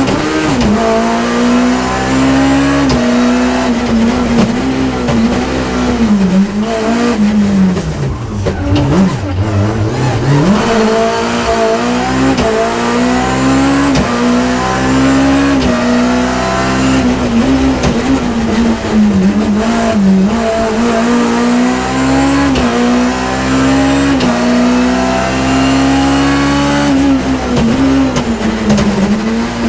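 BMW E30 M3's four-cylinder engine, heard inside the cabin, run hard near 8,000 rpm at full throttle. Its pitch climbs and drops again and again as the car is driven through the stage, falling away deeply at about eight seconds before revving back up.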